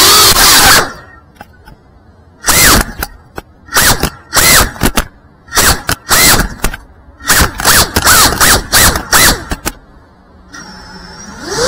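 A 5-inch FPV quadcopter's brushless motors and propellers whine, then cut out about a second in. Through the middle comes a run of short throttle punches, each a quick rising-and-falling whine, as the quad flips and tumbles. After a quieter spell, the motors spool back up near the end.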